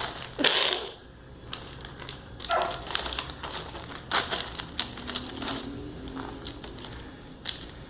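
Plastic bag crinkling and rustling in scattered, irregular bursts as cats play in and around it.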